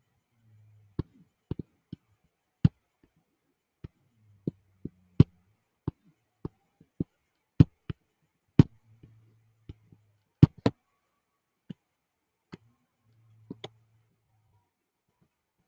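Sharp single clicks at irregular intervals, often close together, with a faint low hum between some of them.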